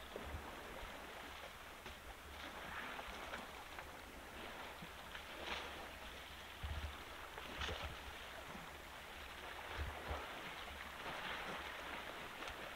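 African elephants wallowing in mud at a waterhole: faint, scattered splashes and sloshing of mud and water over a steady outdoor hiss, with a few soft low thumps.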